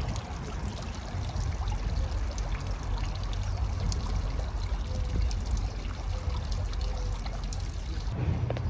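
Steady trickling and splashing of water in a tiered stone fountain.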